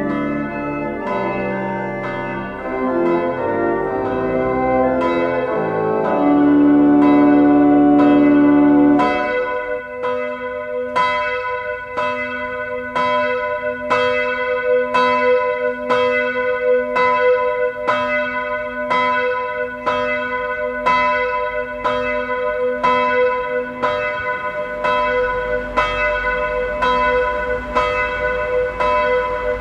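A church bell strikes about once a second, with a steady ring between strikes. For the first ten seconds organ chords play along with it, ending on a loud held chord that cuts off about ten seconds in. After that the bell tolls alone.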